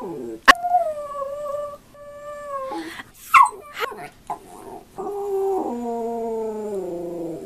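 Shetland Sheepdog howling: drawn-out calls that fall slightly in pitch, a few short yips in the middle, then one long howl that steps down in pitch over the last two and a half seconds.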